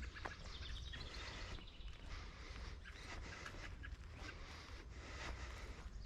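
A hiker's footsteps along a trail, with a low wind rumble on the microphone. A small bird calls a quick run of high chirps about half a second in, and a few more later.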